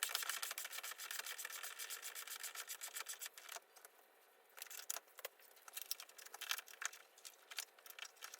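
Hand tools clicking during engine work: a fast, even run of clicks for about the first three and a half seconds, then scattered single clicks.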